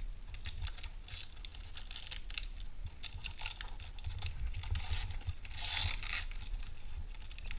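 Foil wrapper of a hockey card pack crinkling and crackling in the hands as it is torn open, with a louder rip of the wrapper about six seconds in.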